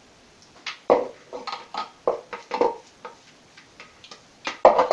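Chopped nuts being poured and shaken out of a plastic food-processor bowl into a mixing bowl, making irregular clattering taps, with a louder clatter near the end.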